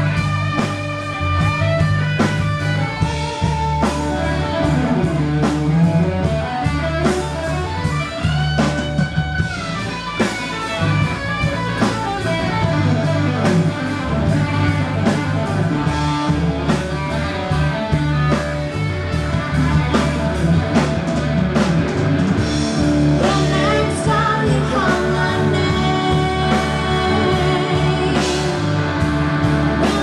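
Live blues-rock band playing: an electric guitar lead with bent notes over an acoustic guitar, bass and drum kit. Singing comes in near the end.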